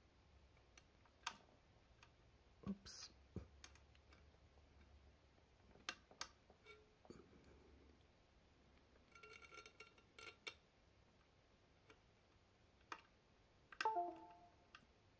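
Scattered faint clicks of fingers and a wire pressing the tiny recovery buttons on a Mekotronics R58X mini-PC. Near the end comes a short Windows USB device chime from the laptop, a few stepped tones, which signals that the board has reset and is re-enumerating in loader mode.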